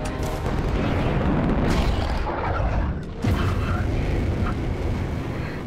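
F/A-18 Super Hornet fighter jet engines running at full throttle: a loud, dense rumble that dips briefly about three seconds in, then comes back with a sudden louder hit.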